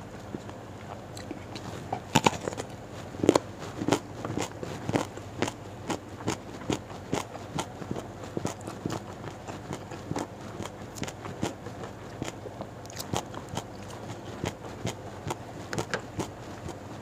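Close-up chewing and crunching of raw vegetables (lalapan) eaten with rice and sambal. A crisp crunch comes about twice a second, loudest about two to four seconds in.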